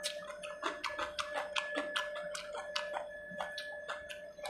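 Wet mouth smacking and chewing while eating fish curry by hand: a quick run of sharp smacks, about four a second, over a faint steady whine.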